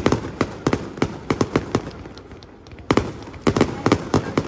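Fireworks bursting overhead in a rapid barrage of sharp bangs, in two dense clusters with a short lull about halfway through.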